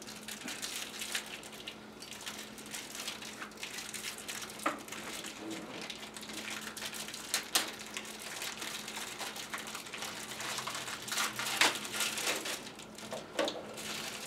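Plastic packaging crinkling and rustling as a small plastic pouch is cut and pulled open with a pocket knife, with a few sharper crackles, the loudest about halfway and three quarters of the way through.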